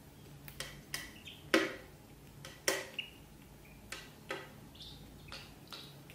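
Sharp taps and clinks on stainless steel food bowls, about nine in all and the loudest about a second and a half in, as kittens and ducklings go at the bowls. A few short, high duckling peeps come between the clinks.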